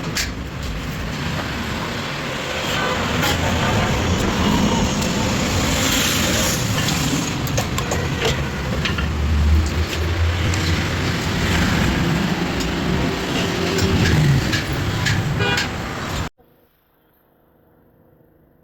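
Steady road-traffic noise with a low rumble swelling about nine seconds in, scattered with sharp clicks and knocks; it cuts off abruptly about sixteen seconds in, leaving only a faint hum.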